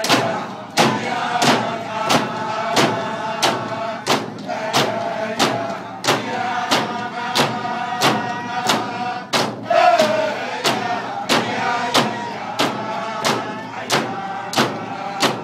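King Island Iñupiaq frame drums (qilaut), thin-skinned hoop drums struck with sticks, beaten in unison on a steady beat of about three strokes every two seconds, under a group of voices singing a chant.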